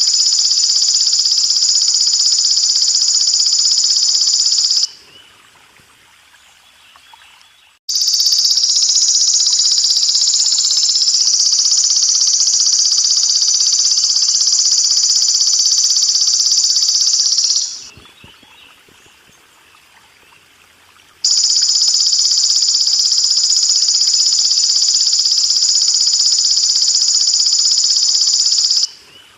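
Belalang emas (golden grasshopper) singing in long, steady, high-pitched buzzing trills. There are three bouts of several seconds each, the middle one about ten seconds long, with short gaps between. Under the trills is a faint steady trickle of running water.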